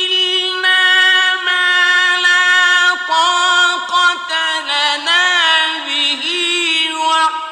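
Male Quran reciter chanting in the melodic mujawwad style. He holds a long, high drawn-out note for about three seconds, then turns it through rippling, ornamented pitch runs, the elongations of tajweed recitation.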